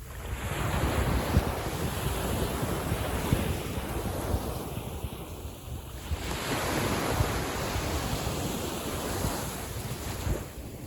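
Calm sea waves washing in, swelling twice and falling away, with wind rumbling on the microphone.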